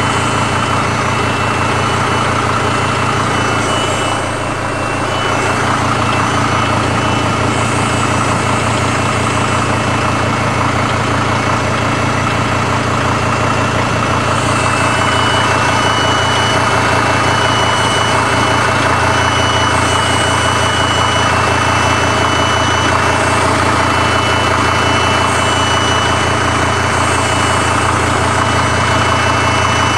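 Mercedes-Benz W210 E290's OM602 five-cylinder turbodiesel idling steadily during cold-weather warm-up, with a fast, even diesel knocking that the owner cannot tell apart from a genuine engine knock. A faint steady whistle from the Webasto heater runs alongside.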